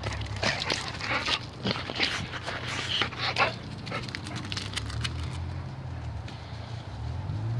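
A dog at play, with a quick run of sharp scrabbling and scuffing sounds over the first three and a half seconds, then quieter.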